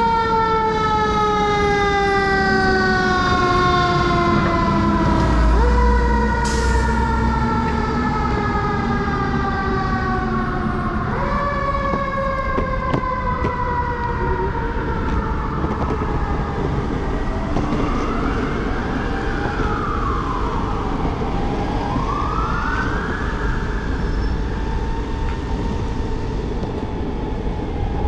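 Emergency vehicle siren in city traffic. It starts as a tone gliding slowly downward and jumps back up twice, then turns into rising-and-falling wail sweeps, over steady street noise.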